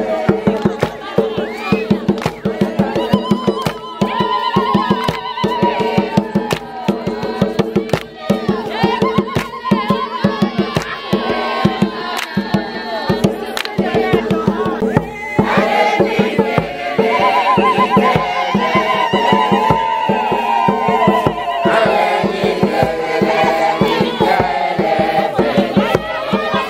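Group singing in several voices over a fast, steady beat of drums or hand claps.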